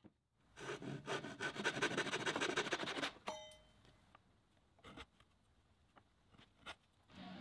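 A hand tool rasping against wood for about two and a half seconds, then a short metallic ring as the tool comes free or is set down, followed by a few light clicks and taps on the bench.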